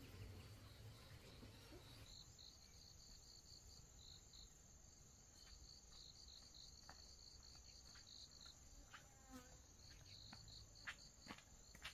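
Faint insects chirping in a rapid, evenly pulsed train over a steady high buzz. Near the end come a few sharp clicks of footsteps on a stony dirt path.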